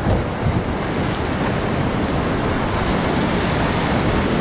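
Whitewater rapid rushing and churning all around the kayak, a steady loud wash of water, with wind buffeting the camera microphone in an uneven low rumble.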